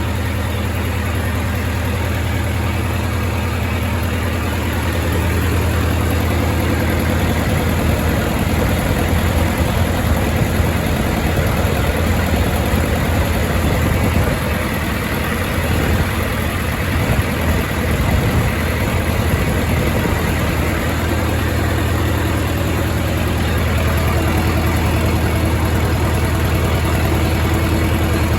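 1928 Farmall Regular tractor's four-cylinder engine running steadily at a low idle, a little louder from about five seconds in.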